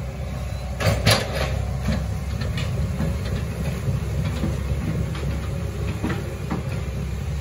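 Hitachi ZX110MF excavator running steadily, with a cluster of loud knocks about a second in and lighter knocks and rattles through the rest.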